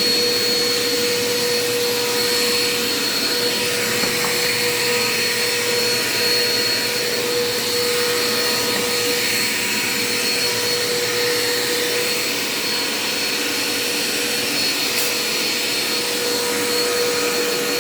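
Dirt Devil Quick Power bagless upright vacuum cleaner running steadily as it is pushed over a hard kitchen floor, its motor giving a steady hum with a high whine over the rush of air.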